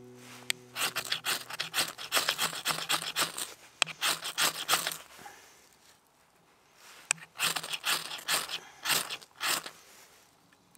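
Ferrocerium rod struck with the filed-sharp spine of a Mora Robust knife, striking sparks to light a fatwood feather stick. Quick, sharp scrapes come in a fast run for the first few seconds, stop briefly, then come in another run.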